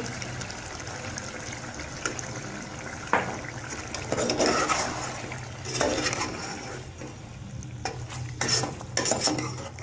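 Metal slotted spoon scraping and clinking against a steel cooking pot in separate strokes, stirring yogurt into frying chicken pieces, over a steady low hum.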